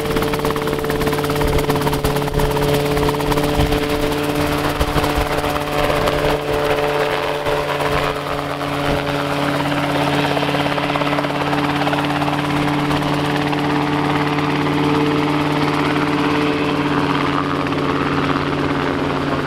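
Rotorway kit helicopter running at flight power: a steady, unbroken drone of engine and rotor, with a few steady tones over a dense rushing noise.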